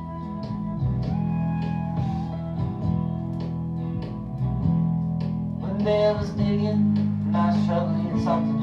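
Country-rock song played from a lathe-cut picture disc on a turntable: an instrumental stretch of plucked guitars over sustained chords and a steady beat, with a wavering higher melodic line coming in over the last few seconds.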